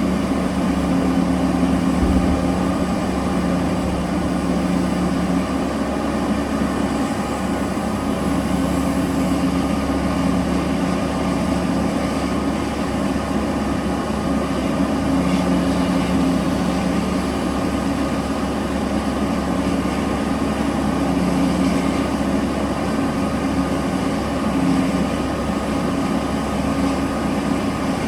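Large diesel engines of a mining excavator and haul truck running steadily, a constant low drone with an even hum and little change in level.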